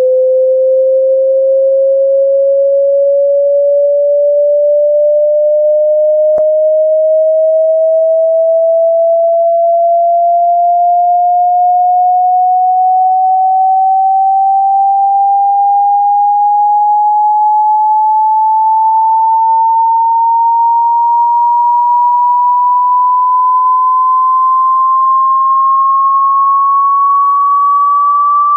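Hearing-test sine tone, one pure steady note gliding slowly and evenly upward in pitch at constant loudness. It is a frequency sweep played to find the highest pitch the listener can hear.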